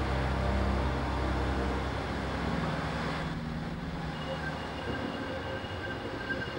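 Old British Rail diesel multiple unit moving along the platform, its engines giving a low steady drone. About three seconds in it gives way to the quieter running of Class 150 Sprinter diesel unit 150001 moving away, with faint steady high-pitched whines.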